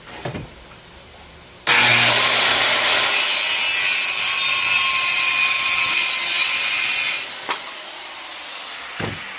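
Power saw cutting through a 1/2-inch plywood board, running steadily for about five seconds with an abrupt start and stop. A few light knocks come before and after the cut.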